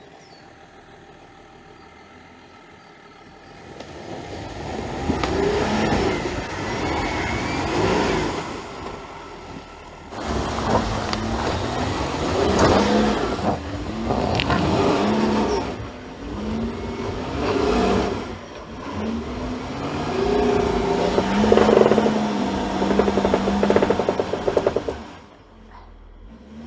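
Volkswagen Touareg's engine revving up and down under load, surging and easing off again and again while climbing a muddy off-road slope. It starts about four seconds in.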